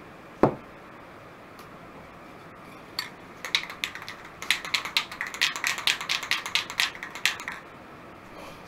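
A single thud about half a second in, then from about three seconds in an aerosol spray paint can is shaken, its mixing ball rattling in quick clacks for about four seconds.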